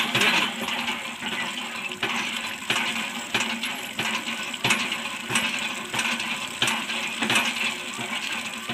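Hand pump being worked: the lever handle and pump mechanism clink with a sharp metallic clank on each stroke, repeating at a steady rhythm, over water gushing from the spout.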